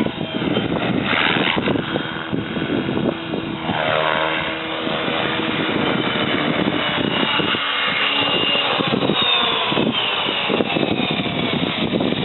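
GAUI Hurricane 425 electric RC helicopter flying, its Scorpion brushless motor and rotor blades giving a steady whine over rotor noise. The whine slides down in pitch about four seconds in and again around nine to ten seconds as the helicopter manoeuvres.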